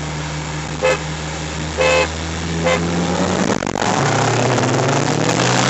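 Three car-horn honks, the middle one longest, given as the start signal for a race, heard from inside the car's cabin over the idling engine. Then, from about four seconds in, the Volkswagen GTI's engine rises in pitch as the car accelerates away.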